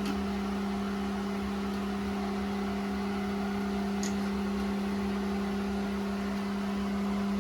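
A steady, even machine hum with a constant low tone, and one faint click about four seconds in.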